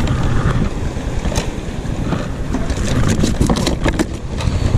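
Wind buffeting the microphone over choppy sea water around a kayak, a steady loud rumble, with a cluster of sharp clicks and knocks about three seconds in as a fish and tackle are handled on the kayak's deck.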